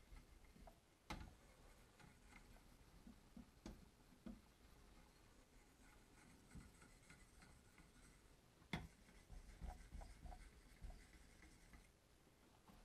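Faint clicks, knocks and light scraping from a Wicked Edge guided knife sharpener as its stone handles and blade clamp are handled. Two sharper knocks stand out, about a second in and near nine seconds.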